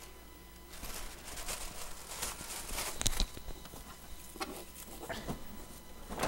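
Handling noise from a new all-in-one printer being turned and worked by hand: a rustle for a couple of seconds, then a few sharp clicks and knocks, the loudest near the end.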